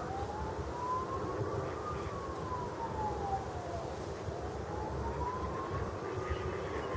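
An emergency-vehicle siren wailing, its pitch sliding slowly up for about two seconds and down for about two, twice over, above a steady low rumble.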